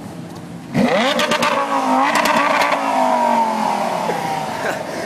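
Sports car engine accelerating hard: about a second in it revs up sharply, with a few sharp pops, then holds a loud note that slowly falls in pitch as it goes on.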